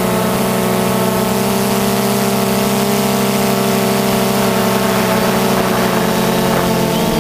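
DJI quadcopter's electric motors and propellers, heard from the onboard camera, giving a steady multi-toned whine; the pitch shifts near the end as the motor speeds change.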